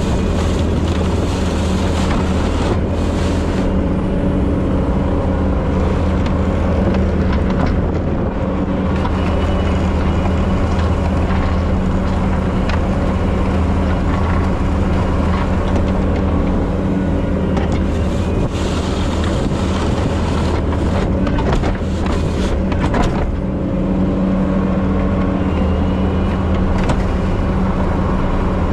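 Bobcat T770 compact track loader's diesel engine running steadily under work, with intermittent scraping and clattering, most of it about two seconds in and again past the middle.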